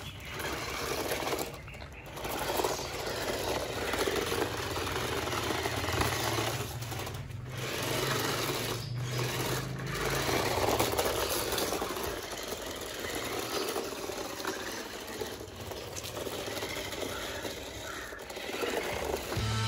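Electric drive motors of a 4x4 RC stunt car whirring as it drives about, with its roller wheels rolling over dirt and concrete. The whir cuts out briefly a few times.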